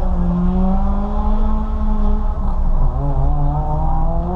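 Ford Fiesta ST engine pulling hard under load at track pace. Its pitch holds fairly steady, drops about three seconds in, then climbs again.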